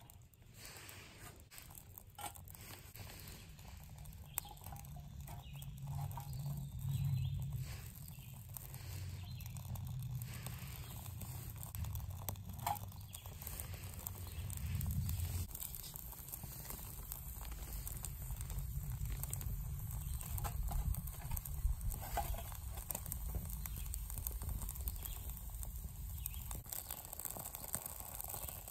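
Small twig fire in a folding backpacking wood stove, crackling with scattered sharp clicks as sticks are fed in. A low rumble runs underneath and swells twice in the first half.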